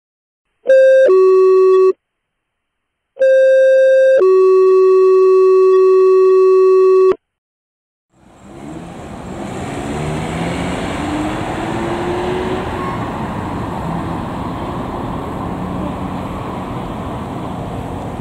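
Electronic two-tone alert tones, a high tone stepping down to a lower one: a short pair, then after a pause a longer pair with a second-long high tone and a three-second low tone, like fire dispatch paging tones. From about eight seconds in, a steady vehicle rumble fades up as the 2022 Chevy 2500 chief's pickup runs in the fire station bay.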